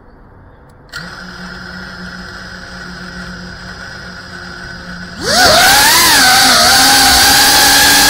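FPV quadcopter's brushless motors and propellers: about a second in they start spinning at idle with a steady hum, then around five seconds in the throttle comes up and they jump to a loud, high buzz whose pitch rises and wavers as the drone lifts off.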